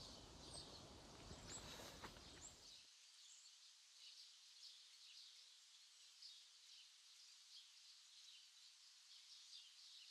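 Near silence: faint woodland ambience with scattered high bird chirps. A low background rumble cuts off suddenly about three seconds in.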